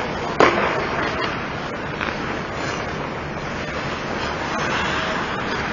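Ice hockey game play in an arena: a steady rush of rink noise with one loud, sharp knock about half a second in and a few fainter clicks after it.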